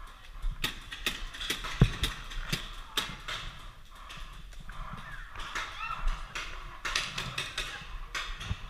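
Paintball fire: a scatter of rapid, irregular sharp pops from markers shooting and paintballs striking, the sharpest crack about two seconds in.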